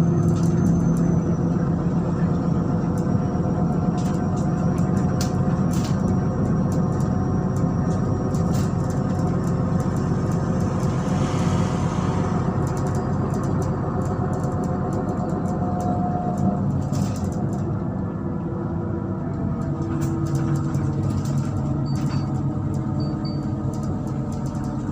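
MAZ-103 city bus on the move, heard from inside: its engine and running noise go on steadily, the engine pitch shifting a few times, with scattered short clicks.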